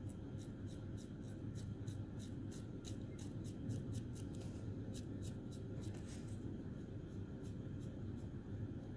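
Small paintbrush scratching against a plastic scale model as weathering paint is worked on in short strokes, about three a second, fainter after about six seconds. A steady low hum runs underneath.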